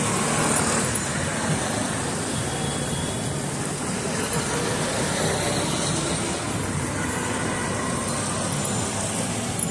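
Steady roadside traffic noise: the continuous din of passing vehicles on a busy street.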